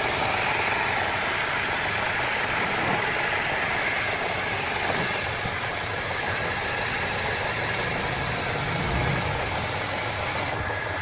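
Steady mechanical running noise, like an engine or machine running.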